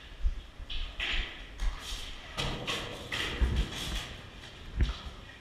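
Footsteps scuffing and tapping on a gritty concrete floor, with the rustle of the wearer's gear and irregular dull thumps; the strongest thump comes near the end.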